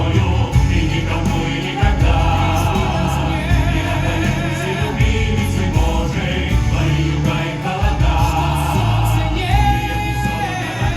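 Music with a choir singing over a full accompaniment with a heavy low end; a long held note sounds near the end.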